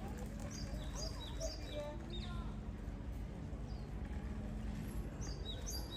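Small birds chirping: a few short, high, falling chirps in quick succession near the start and again near the end, over low background noise and indistinct voices.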